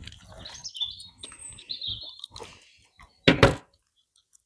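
Short high chirps over light tapping in the first two seconds, then one loud, brief clatter about three seconds in.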